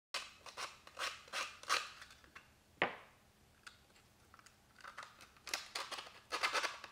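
Small wooden blocks clicking and scraping as they are handled and set down on a table, in irregular taps with one sharper knock about three seconds in.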